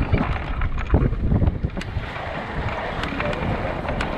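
Wind buffeting the microphone over water rushing and splashing along the hull of a sailboat under way, with short sharp splashes scattered through.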